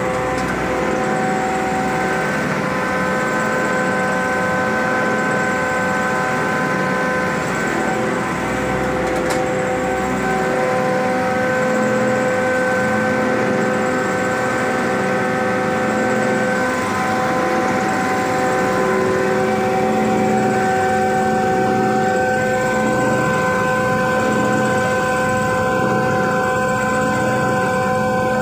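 Red chilli pulveriser grinder running at speed: a steady whine of several held tones over a low rumbling drone.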